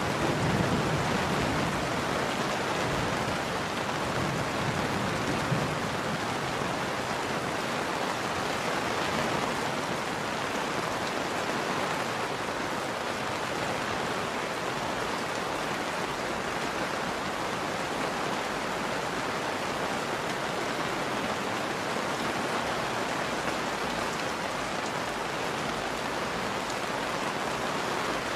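Steady rain: an even, unbroken hiss of falling drops.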